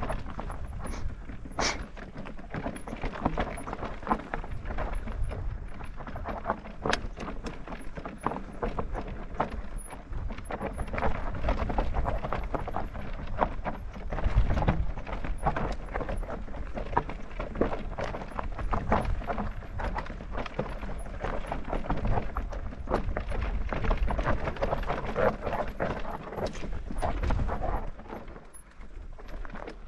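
Clattering and knocking of an electric mountain bike on a rough, rocky trail, many sharp clicks and rattles without let-up, over a low rumble of wind on the microphone.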